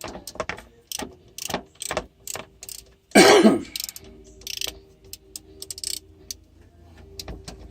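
Hand ratchet clicking in uneven runs as a bolt holding a power steering pump to its bracket is turned out, with one louder, longer, wavering sound about three seconds in.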